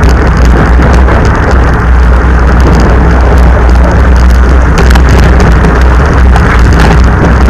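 Loud, steady wind buffeting on the microphone of a camera riding on a racing bicycle, with scattered knocks and rattles as the bike rolls over a rough gravel track.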